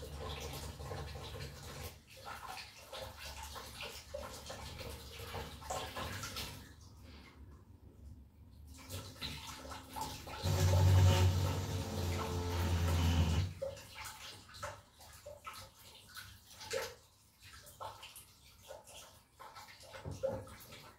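Water running and splashing, louder for about three seconds in the middle, followed by scattered small knocks.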